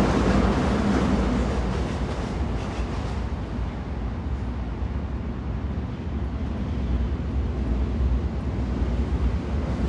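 Train running: a steady low rumble with a rushing hiss over it, easing off a little a few seconds in and building again near the end.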